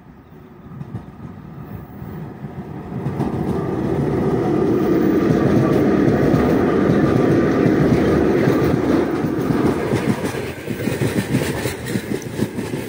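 3ES5K 'Ermak' three-section electric locomotive approaching and passing close by at the head of a heavy freight train, growing louder over the first four seconds. From about ten seconds in, the freight wagons roll past with a regular clickety-clack of wheels over the rail joints.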